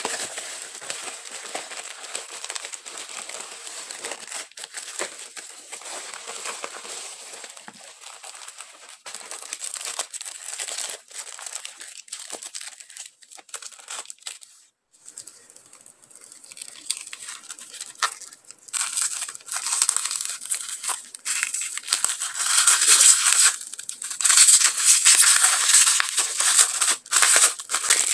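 Plastic packaging crinkling and rustling as it is handled: a bubble mailer, then the clear plastic wrap around a roll of decorative tape. There is a short lull a little past halfway, and the crinkling grows louder and denser over the last third.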